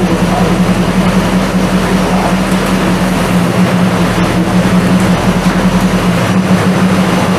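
Engine of a 2015 Nissan Titan, a 5.6-litre V8, running steadily with a low, even hum.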